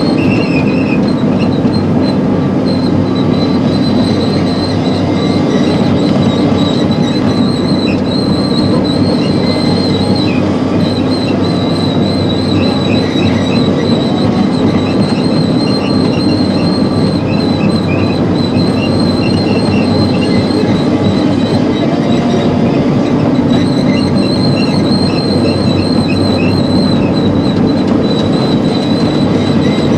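Crawler excavator travelling on its steel tracks, heard from inside the cab: the diesel engine runs steadily under a constant high whine while the tracks clank and squeak as they roll over and compact rocky fill.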